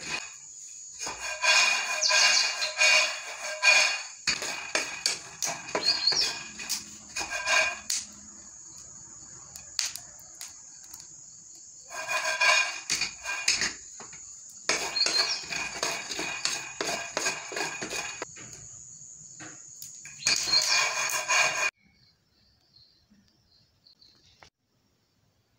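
Peanuts rattling and scraping in a metal frying pan as they are stirred with a wooden spoon and tossed while dry-roasting over a charcoal stove, in repeated bursts of a few seconds with short pauses between. It stops abruptly about 22 seconds in, and only faint sounds follow.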